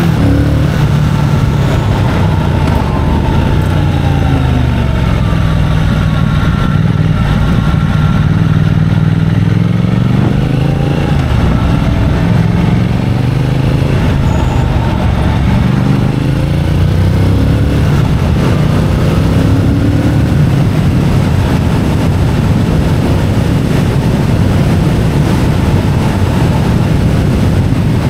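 Triumph Speed Twin 1200's 1200 cc parallel-twin engine and exhaust, heard from the rider's seat, with the revs rising and falling as the bike accelerates and eases off.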